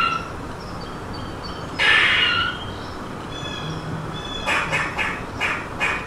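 Outdoor animal calls: one loud, harsh call about two seconds in, then a quick run of short calls from about four and a half seconds on, with faint high bird chirps between.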